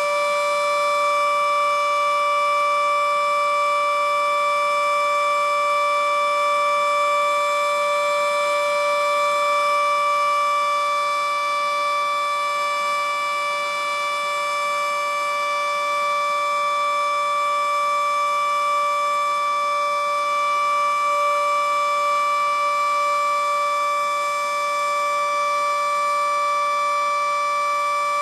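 FS&S (Federal Sign & Signal) Model 7B outdoor warning siren sounding its steady alert signal: one unbroken, loud tone held at a constant pitch, swelling and fading slightly.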